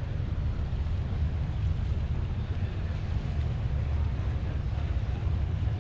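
Steady low rumble of wind on the microphone, mixed with the engine of a ferry boat approaching the pier.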